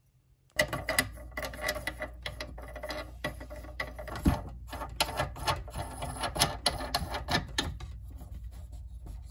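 A faucet mounting nut being spun by hand up a threaded brass shank: a run of quick clicks and rubbing scrapes, starting about half a second in.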